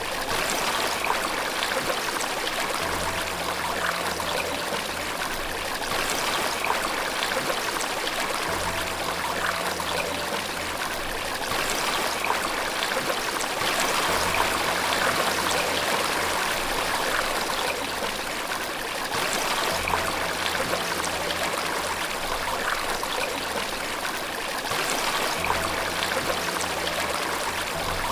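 Running water, a steady even rush like a small waterfall, with a faint low tone that swells in for a few seconds about every five or six seconds.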